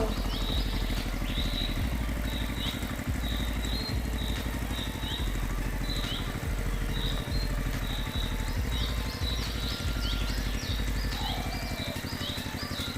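A small motor running steadily with fast, even pulses, with birds chirping over it in short repeated falling chirps.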